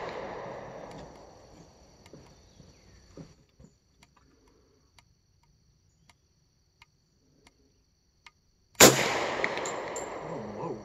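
The echo of a rifle shot dies away over the first couple of seconds, then about nine seconds in a 6.5 Creedmoor rifle fires once, a sharp crack followed by a long rolling echo; a few faint ticks fall in the quiet between.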